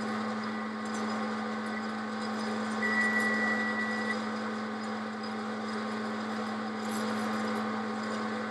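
Microwave oven running with a steady hum while heating a cup of butter, then shutting off near the end, the hum sliding down in pitch as it winds down.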